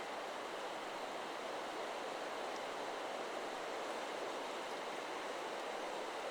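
Steady wind rushing through forest trees, a constant rustling hiss.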